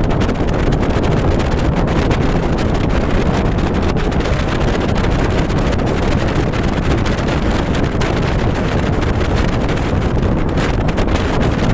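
Wind blowing across the microphone: a steady, loud rush of noise, heaviest in the low end.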